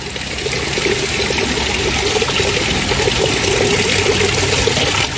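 Water running over rocks in a small waterfall creek, a steady rushing splash.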